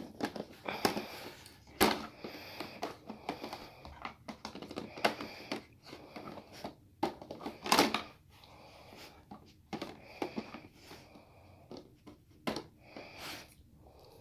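A dog working at a treat puzzle box: irregular clicks, knocks and scrapes as its lids and pieces are moved, with a few louder knocks.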